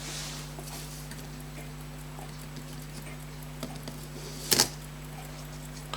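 Small metal clicks of fusee pocket-watch parts being worked apart with tools: a few faint ticks and then one sharp double click about four and a half seconds in, over a steady electrical hum.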